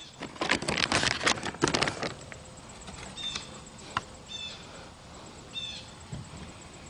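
A cardboard firework cake box being handled and turned over: a quick run of rustles, scrapes and knocks for about two seconds. After that come three short, high chirps about a second apart.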